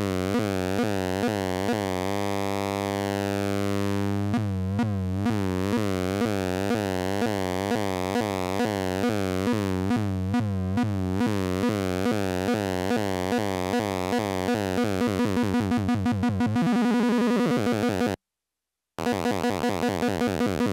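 Homemade 9-volt CMOS square-wave synthesizer playing a low, buzzy bass tone, its automated filter and pulse-width modulation sweeping it in a steady pulse about twice a second. The pulse stops for a held tone about two seconds in, later speeds up to about four a second, and the sound cuts out for under a second near the end before starting again.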